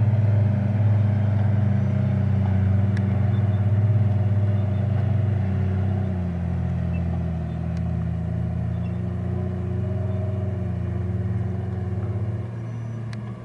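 A vehicle engine running with a steady low drone, getting quieter near the end.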